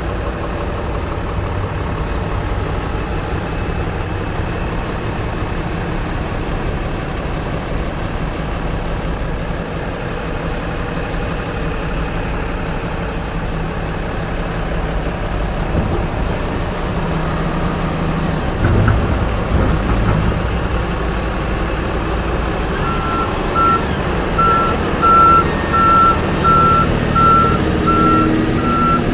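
Komatsu HB365NLC hybrid excavator running steadily, with a single thump a little past the middle. Near the end its travel warning alarm starts beeping at an even pace.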